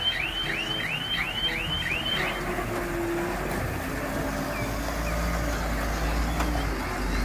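Heavy diesel dump truck running as it moves slowly, its engine a low steady drone that grows a little louder about five seconds in. For the first two seconds a quick series of high electronic warning chirps, about three a second, sounds over it.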